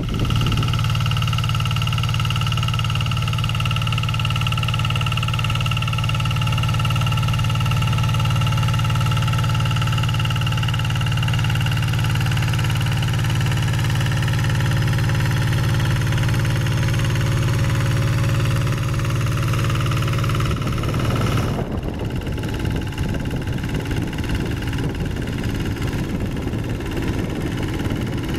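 Diesel engine of a walking hand tractor running steadily under load while it drives its rotary tiller through soil, with a strong, even engine note. About 21 seconds in, the sound changes abruptly to a rougher, noisier run.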